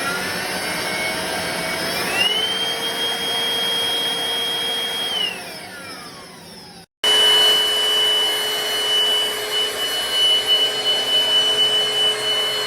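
Black+Decker POWERSERIES+ cordless stick vacuum motor running. Its whine steps up in pitch about two seconds in, then winds down with a falling pitch after about five seconds. After an abrupt cut it runs on with a steady high whine.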